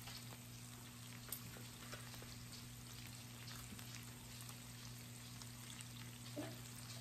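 Pork slices and king mushrooms sizzling on an electric raclette grill plate: a faint, steady hiss dotted with small crackles and pops, over a steady low hum.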